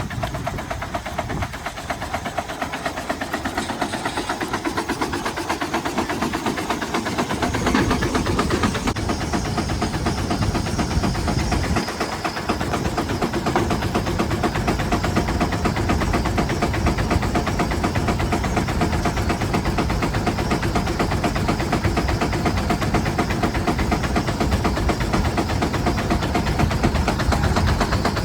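Steam traction engine driving a Bradley sawmill by belt, its exhaust thumping in fast, even beats. It gets louder and deeper about seven seconds in.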